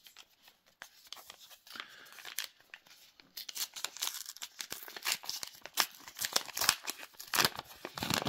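Trading card booster pack wrappers being torn open and crinkled by hand. Sparse soft crackles become loud, dense crinkling about halfway through.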